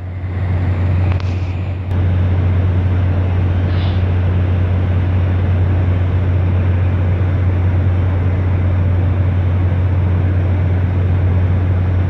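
Steady low drone of ship machinery with a broad rushing noise over it, growing louder over the first two seconds and then holding even.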